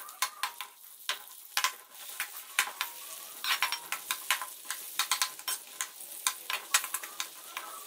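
Sliced onions sizzling as they fry in hot oil in a metal pot, while a metal spoon stirs them and scrapes and clicks against the pot again and again.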